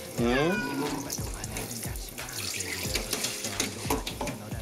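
Water running steadily from a bathtub tap, with a cat letting out one loud, drawn-out cry near the start as it is being bathed.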